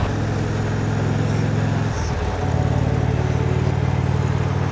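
Motorcycle engine running at a steady cruise under a constant rush of wind and road noise. Its note wavers briefly about two seconds in, then settles at a slightly different pitch.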